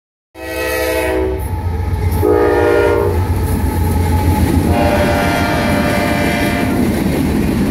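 Kansas City Southern freight train's diesel locomotive air horn sounding three chord blasts, the first two about a second each and the last about two seconds, as the locomotives pass close by. Under it runs a steady low rumble of the diesel engines and wheels on the rails.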